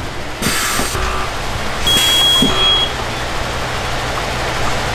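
Hotronix Air Fusion air-operated heat press at work: two short hisses of compressed air as the press runs its cycle, with a steady high beep of about a second from the press starting about two seconds in.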